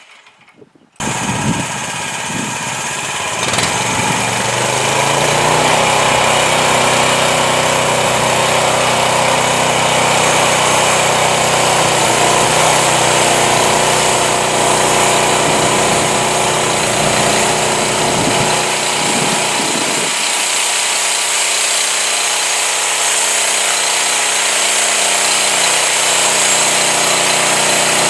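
Home-built band sawmill running steadily under power, its engine and band blade sawing through a honey mesquite log. The sound starts abruptly about a second in, and its deepest rumble drops away about twenty seconds in.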